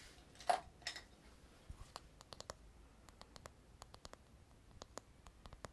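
Light, sharp clicks and taps of fingers handling a small round hard object close to the microphone, many in quick irregular succession. A short, louder soft noise comes about half a second in.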